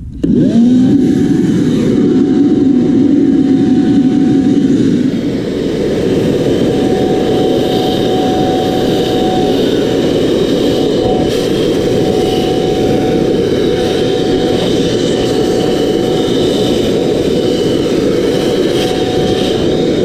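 A corded Toro electric leaf blower switches on and spins up within the first half second. It then runs steadily with a high whine over a loud rush of air as it blows debris off a bicycle.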